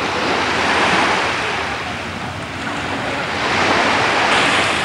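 Sea surf washing onto the shore, swelling twice, about a second in and again near the end.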